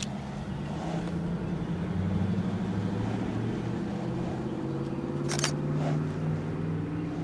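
A motor vehicle engine running nearby, its hum growing louder through the middle and its pitch drifting slowly. A sharp click comes a little over five seconds in.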